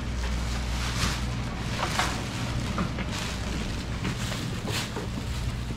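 Walking footsteps on a paved market lane, about one a second, over a steady low rumble of street ambience.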